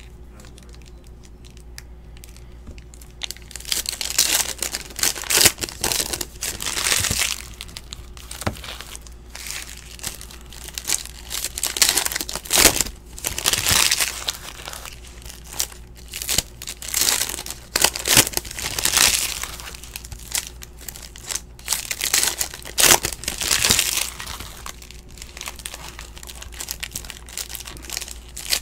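Foil wrappers of Panini Ascension basketball card packs crinkling and tearing as packs are opened and handled, in irregular bursts after a quiet first few seconds.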